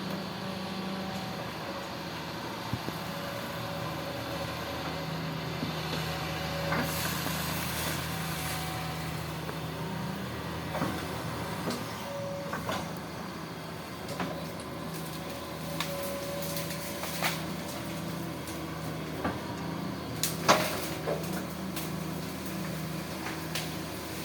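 Hitachi hydraulic excavator's diesel engine running steadily, louder for a few seconds around a third of the way in, with a dozen or so sharp knocks spread through, the loudest near the end.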